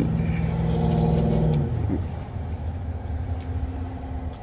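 A motor vehicle's engine running over a low rumble. The steady hum drops in pitch and fades about a second and a half in, and a fainter hum carries on after it.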